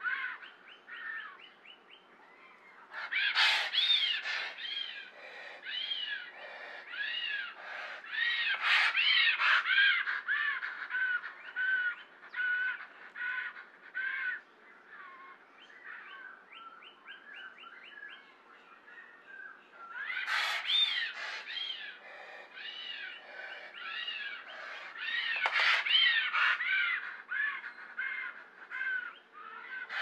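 Pteranodon creature sound effect: a string of squawking, caw-like bird calls, each note rising and falling in pitch. The calls come in loud flurries with quieter stretches between. Twice a fast rattling run of clicks is heard, once near the start and once about halfway through.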